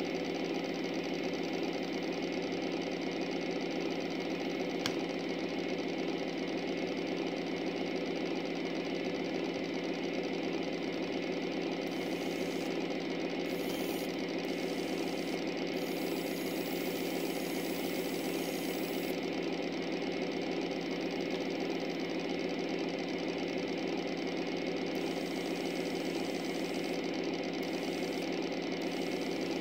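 An LGB garden-scale model locomotive's electric motor and gear drive running with a steady, even buzzing hum. A single short click comes about five seconds in.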